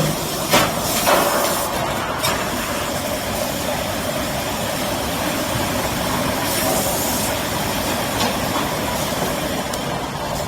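A 5-gallon bottle washing machine running with a steady mechanical noise and spraying hiss. There are a couple of sharp clanks in the first second, and a louder burst of hiss about six and a half seconds in.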